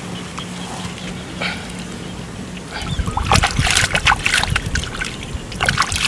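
Splashing and sloshing in shallow muddy water as hands work and pull at something just under the surface, starting about three seconds in as a run of irregular splashes. Before that, a steady low hum.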